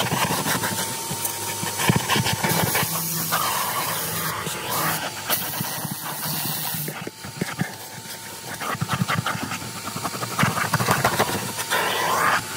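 Vacuum cleaner running with a steady whine as its nozzle is dragged back and forth over the dirty floor carpet of a truck, with many small clicks as grit is sucked up. The suction noise drops for a couple of seconds around the middle and then comes back.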